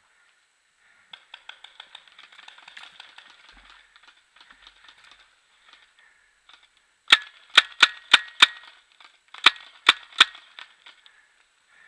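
Paintball marker firing: five sharp shots in quick succession, then three more about a second later. Before them, several seconds of faint rapid ticking.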